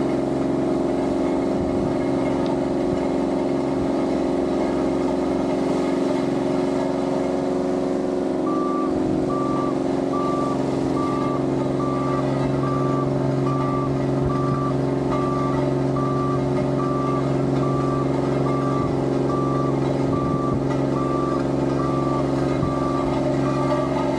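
Road roller's diesel engine running steadily. About a third of the way in, its reversing alarm starts, with short even beeps a little more than once a second, showing the roller is backing up.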